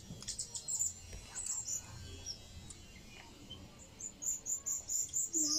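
A quick run of about eight high-pitched chirps, some five a second, in the last second and a half, from a small animal. Before it, light mouth clicks and smacks of eating.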